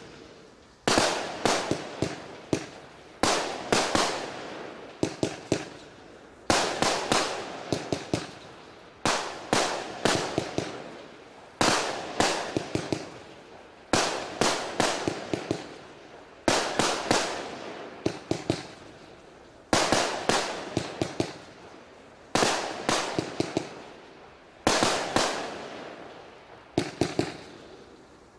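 Lesli 'McFat' 144-shot, 25 mm compound fireworks cake firing: clusters of sharp shots about every second or so, each trailing off, in a steady rhythm throughout.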